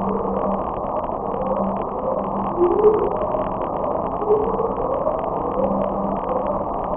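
Hydrophone recording of the 'Upsweep', the unidentified Pacific Ocean sound logged by NOAA in 1991. A series of short rising sweeps repeats about every second and a half over a steady hiss.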